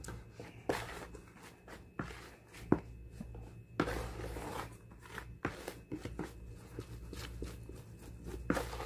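Spatula and hand mixing starch flour into a damp bait dough in a plastic basin: irregular scraping and rustling with soft knocks against the bowl, the longest rustle about four seconds in.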